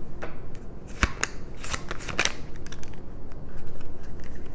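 Tarot cards being handled and shuffled, giving a quick run of crisp snaps and clicks about a second in, then a few lighter ones.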